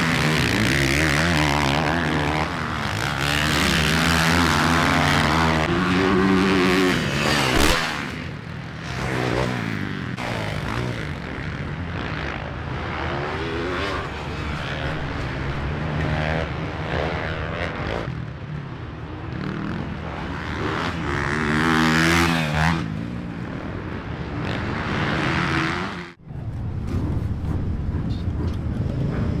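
Motocross bikes racing on a dirt track, engines revving up and dropping back again and again as riders accelerate and shift. The engine sound is loudest in the first eight seconds and again a little after twenty seconds, then cuts off sharply near the end.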